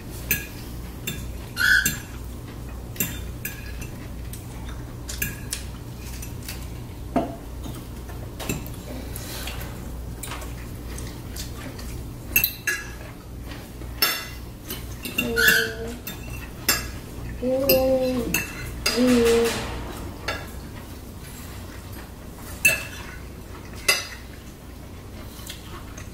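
Knife and fork clinking and scraping on plates as people eat, in scattered sharp clicks. A few brief voice sounds come about two-thirds of the way through.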